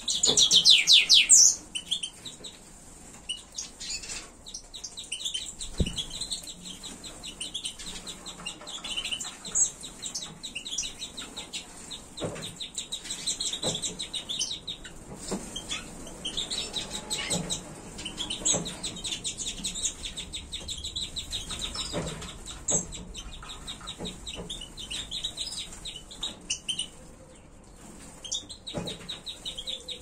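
A flock of small caged finches, among them European goldfinches, twittering and chirping continuously, with a loud burst of calls at the very start and occasional wing flutters.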